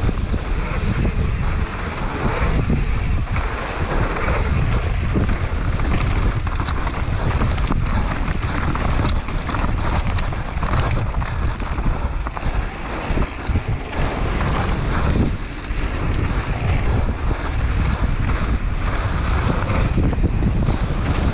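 Wind rushing over a helmet-mounted microphone as a hardtail mountain bike descends a dirt forest trail at speed. Tyres run over dirt and roots, with frequent short knocks and rattles from the bike throughout.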